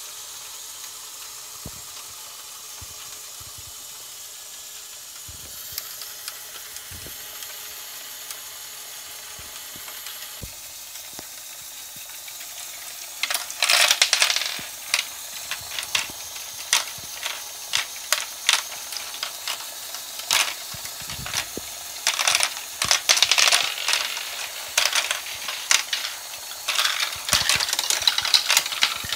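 Small hard plastic Lego balls clattering in a Lego Great Ball Contraption module: over a steady whir of the mechanism, a burst of rapid clicks about halfway in as a handful is dropped into the input bin, then bursts of clicking and rattling as the balls tumble and are carried through the lift.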